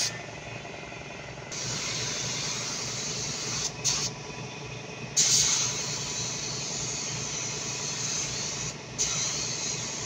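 Compressed-air paint spray gun hissing in trigger-pulled passes with short breaks between them. There is a short burst about four seconds in and a longer, louder stretch from about five seconds in that breaks off briefly near the end.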